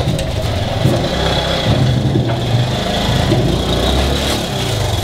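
Small motorcycle engine running steadily at low revs as the bike rolls slowly forward.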